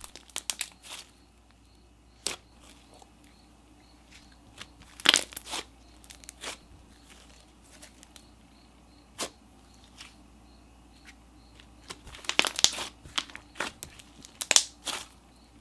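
Thick, glossy slime squished and pressed between hands, its trapped air bubbles popping in sharp scattered pops and crackles. The pops come in quick clusters about five seconds in and again near the end, with quiet stretches between.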